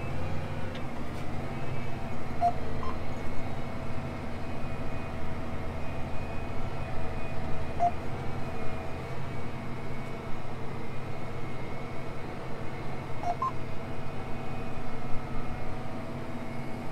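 John Deere tractor's diesel engine running steadily at road speed, heard from inside the cab. A few short, faint beeps sound now and then over the drone.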